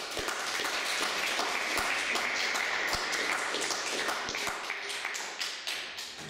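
Audience applauding, starting suddenly and thinning out near the end into a few separate claps.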